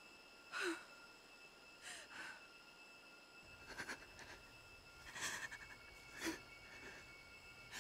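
A woman's frightened breathing: a string of short, faint gasping breaths, about one a second.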